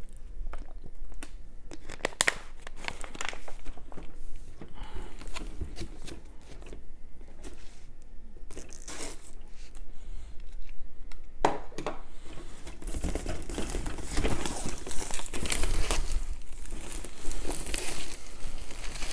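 Packaging of a boxed plastic miniatures kit being torn open and crinkled by hand: scattered crackles at first, becoming denser and louder from a bit past halfway.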